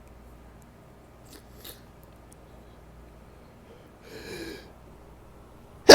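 A person with hay fever between sneezes: faint sniffs, a breath drawn in about four seconds in, then the sudden loud start of a sneeze at the very end.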